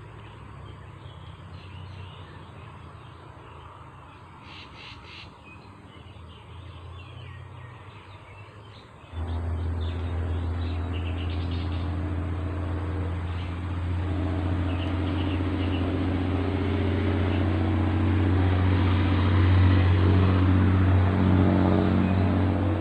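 A few birds chirping over quiet outdoor ambience. About nine seconds in, a steady low engine drone starts suddenly and grows slowly louder.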